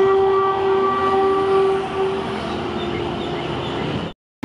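Diesel locomotive horn sounding one long blast of about three seconds, which then trails off into a fainter lower tone. The sound cuts off suddenly near the end.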